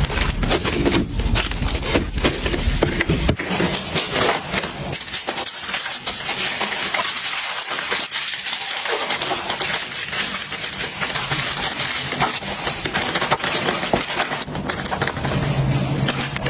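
Small hard items being handled: a dense, continuous clatter of clicks and crackles, with a low rumble in the first few seconds.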